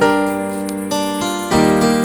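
Background piano music, chords changing about every half second to a second.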